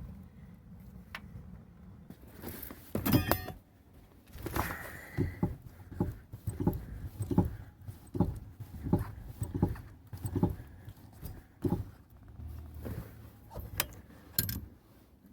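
Hand tools working metal parts on a car: a regular run of metallic clinks and knocks, roughly one and a half a second, starting about two and a half seconds in.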